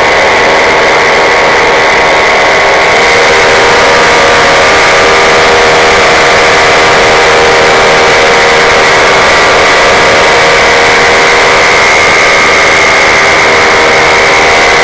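Paramotor engine and propeller running loud and steady in flight, with an unchanging pitch.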